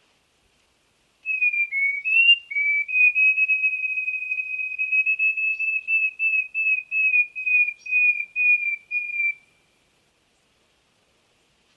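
A songbird singing a long song of clear whistled notes at nearly one pitch, starting about a second in with a few dipping notes, then running on in a steady series that breaks into separate notes, about three a second, before it stops.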